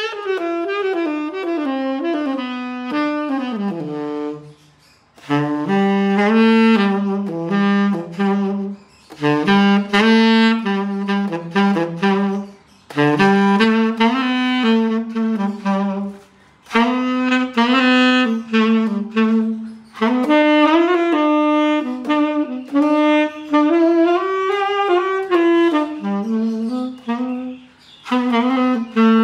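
Tenor saxophone played solo: a melody in phrases of a few seconds each, separated by short breaks for breath, returning again and again to a repeated low note.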